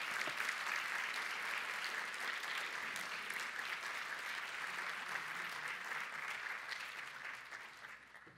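Conference audience applauding, steady for most of the time and then dying away near the end.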